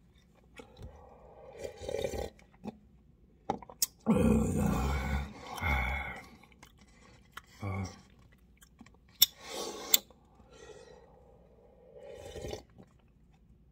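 A man eating instant cup noodles, slurping and sipping broth straight from the paper cup and chewing. There are short grunts, the loudest a burst about four seconds in, and two sharp clicks near the end.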